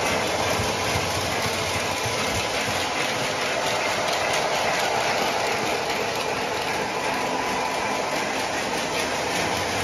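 O scale model subway train running on the layout's track: an even rolling rumble of wheels and motors with fine clicking over the rail joints and a faint steady whine.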